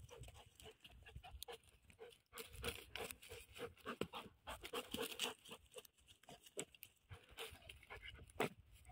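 Dogs sniffing and snuffling with their noses pushed into the dry stubble, a run of quick short sniffs with crackling of dry straw.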